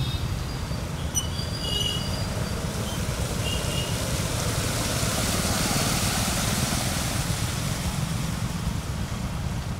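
Street traffic on a flooded road: motorcycle engines and tyres pushing through standing floodwater, a steady rumble with a hiss of splashing water, and a few faint high chirps in the first seconds.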